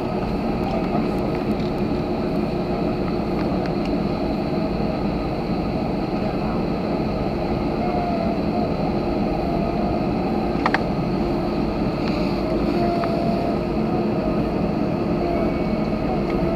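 Steady cabin noise inside an Airbus A320-family airliner taxiing slowly, its jet engines at low power with a steady whine. Faint voices murmur underneath, and there is one sharp click about ten and a half seconds in.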